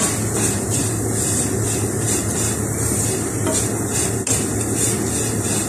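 Soya-chunk filling sizzling as it fries in oil in a non-stick pan, stirred and scraped with a wooden spatula while it is cooked dry. The sizzle and scraping swell and fade in time with the stirring strokes, a bit under twice a second.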